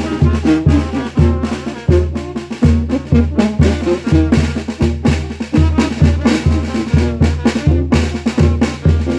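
Mexican brass band (banda) playing: a deep bass line of short bouncing notes under drums and brass.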